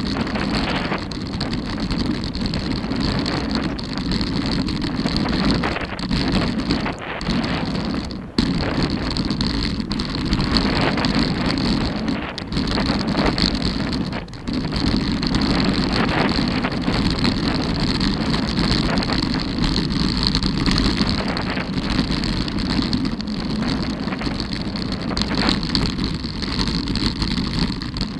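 Mountain bike rolling fast down a gravel trail: a continuous rumble of tyres over loose stones mixed with wind on the camera microphone, with a few brief dips.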